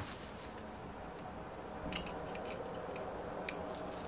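Light metallic clicks and ticks of a small hex driver and tiny screws against the crankcase and connecting rod of an OS FF-240 Pegasus model engine during disassembly: a sharp knock at the start, a cluster of clicks about two seconds in and another click near the end.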